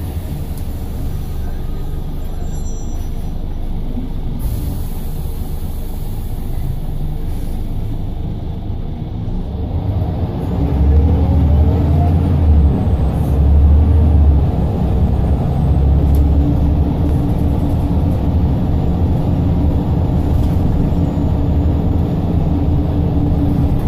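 Single-decker diesel bus running, heard from inside the passenger saloon: a steady engine and road rumble, with a hiss about four seconds in. About ten seconds in the engine note grows louder and deeper, with a brief rising whine.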